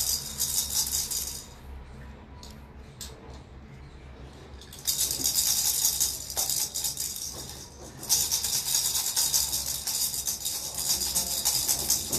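A small plastic toy rattle being shaken in spells, giving a dense, high rattling. It stops for about three seconds soon after the start, leaving only a few clicks, then starts again and pauses briefly about eight seconds in.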